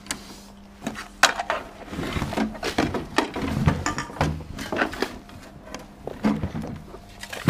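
Hard plastic stereo equipment being handled and shifted by gloved hands: a run of clattering knocks and bumps, the sharpest a little over a second in.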